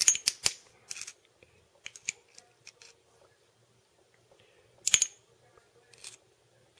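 A thin metal probe clicking and scraping against a brass swing check valve's body and its swing gate, which is stuck open. Several quick clicks at the start, a few more about one and two seconds in, and a louder cluster about five seconds in.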